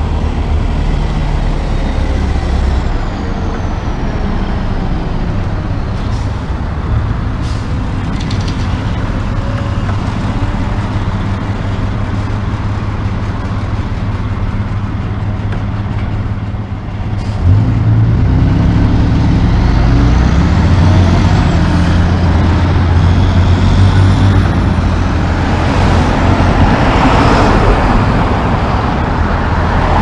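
Heavy diesel engine of a concrete mixer truck running low and steady among passing road traffic, then louder and working harder from a little past halfway as the truck pulls away. A few short, sharp noises are heard in the first half.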